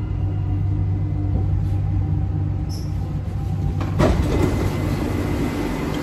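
Dubai Metro train heard from inside the carriage: a steady low hum with several steady motor tones that die away as the train comes to a stop at a station. About four seconds in there is a sudden loud rush of noise.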